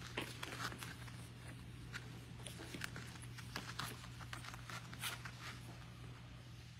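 Four-week-old puppies moving about in their pen: scattered small scratches and clicks at an uneven pace, over a steady low hum.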